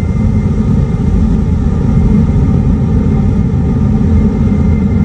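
Hyundai IONIQ 5 electric car driving, heard from a microphone in its front trunk: a heavy steady road rumble with the faint held tones of its pedestrian warning sound (VESS) above it.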